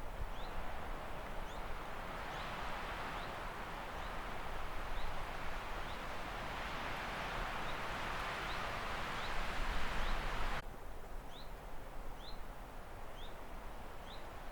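A bird's short, high, rising chirp, repeated about every second, over a steady rustling hiss that drops off abruptly about ten seconds in.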